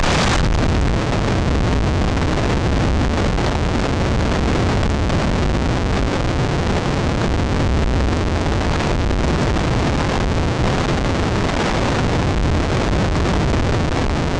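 Wind buffeting an outdoor microphone: a loud, steady rumble and hiss, with a brief brighter rush right at the start.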